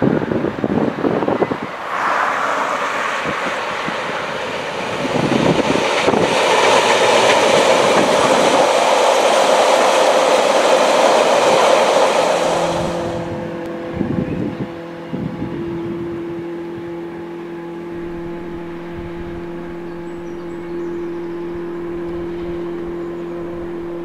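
Loaded Tara Mines freight wagons rolling past on the rails: a strong, even rush of wheels on track that cuts off abruptly about 13 seconds in, with wind buffeting the microphone at the start. After the cut, a steadier, quieter low hum holds a couple of level tones.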